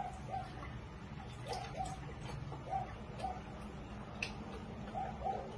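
Almond milk glugging as it is poured from a carton into a glass: a string of short, faint gulping blips at uneven intervals, with one small click about four seconds in.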